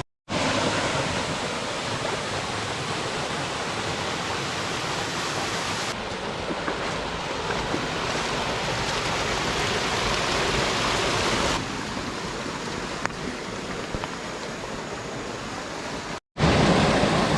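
Waterfall rushing: a steady wash of falling water. Its sound shifts abruptly a few times and drops out briefly twice, once just after the start and once near the end, where shots are cut together.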